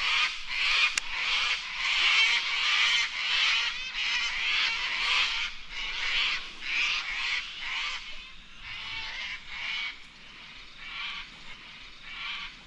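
A chorus of wildlife calling from the creek: many short calls repeating a couple of times a second, louder for the first half and fading toward the end.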